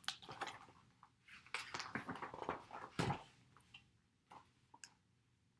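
Pages of a picture book being handled and turned: a few seconds of soft paper rustling and light taps, then a couple of faint ticks.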